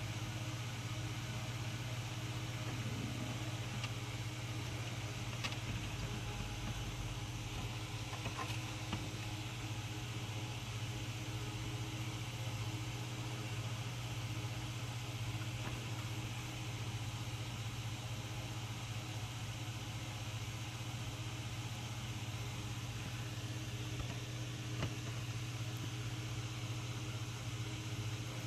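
A steady low mechanical hum, unchanging throughout, with a few faint clicks.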